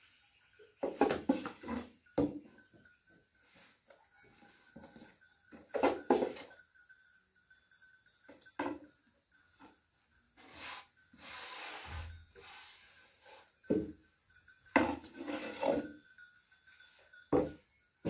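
Long thin wooden rolling pin rolling and knocking on a floured round board as flatbread dough is rolled out thin, in irregular bursts of clacks and rubbing with a longer scraping stretch midway.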